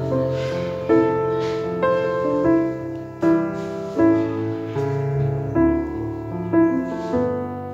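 Background piano music: a slow, gentle melody of struck notes, a new note or chord about every second.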